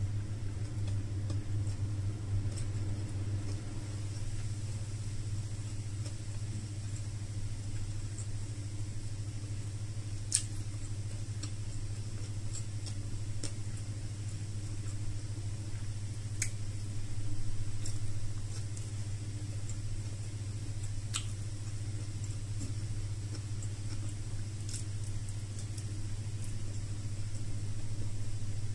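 A steady low hum throughout, with faint chewing and a few sharp mouth clicks of a person eating by hand.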